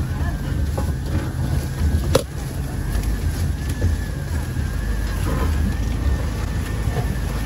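Off-road vehicle's engine running with a steady low rumble as it drives slowly over a rough, overgrown trail, with scattered small rattles and one sharp knock about two seconds in.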